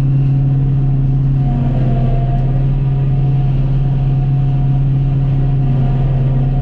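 Tractor engine running steadily at a constant speed, a loud, even low hum.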